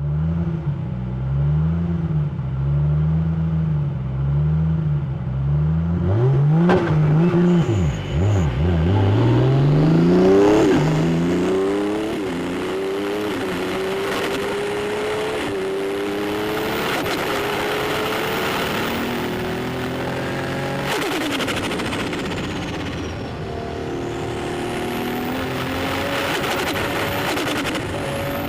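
Turbocharged 2JZ straight-six of an 800 hp Toyota 86 race car under hard acceleration. The engine note climbs and drops back again and again as it shifts through the gears, with turbo flutter from its Garrett GTX4088R turbo.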